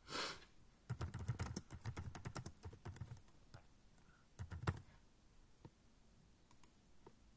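Typing on a computer keyboard: a quick run of keystrokes for about two seconds, then a single harder key press about four and a half seconds in, followed by a few faint clicks.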